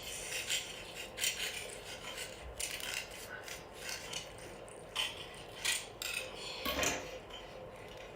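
Irregular short, crisp scrapes and clicks of utensils and seafood being handled and eaten, mukbang-style.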